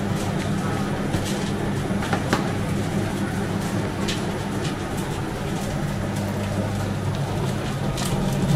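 Steady low motor hum of bakery kitchen machinery, with a few light clicks and knocks scattered through it.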